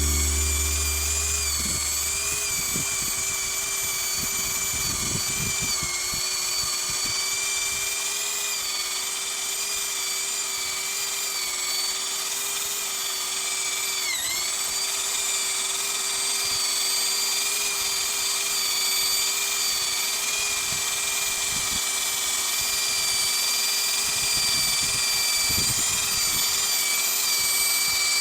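Plastic welding machine's electric motor running with a steady high-pitched whine, its pitch dipping briefly about halfway through, with a few faint knocks.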